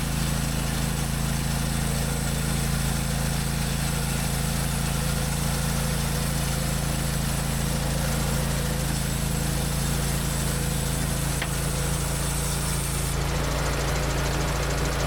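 Engine running steadily at a constant speed.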